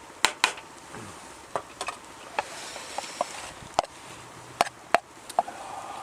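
A utensil clinking and scraping against a small frying pan while food is scooped out of it, with sharp clicks at irregular intervals.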